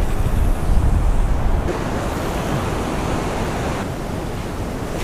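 Ocean surf washing in over the sand, a steady rushing of foamy wave water, swelling a little in the middle. Wind buffets the microphone with a low rumble in the first second or so.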